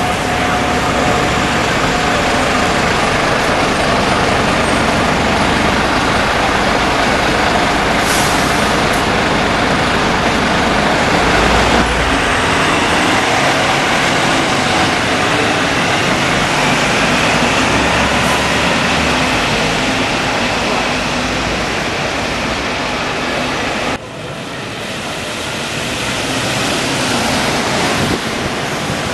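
Road traffic with bus engines running: steady, loud engine and tyre noise, with a faint rising whine midway and abrupt changes about 12 and 24 seconds in.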